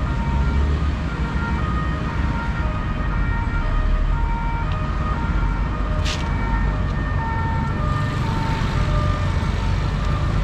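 Two-tone emergency vehicle siren sounding in the distance, its steady notes alternating in pitch, over the steady rumble of road traffic. A sharp click comes about six seconds in.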